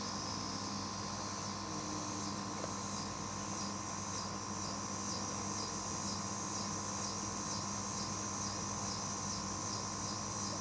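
Insects chirping, a high, evenly pulsing trill that keeps going throughout, over a low steady hum.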